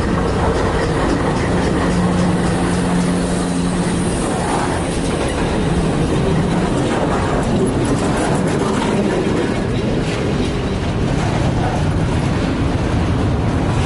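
A freight train led by Canadian Pacific GE ES44AC diesel locomotives passing at close range. The locomotive engines drone steadily for the first few seconds, then the freight cars rumble by with the clicking and clacking of steel wheels on the rail.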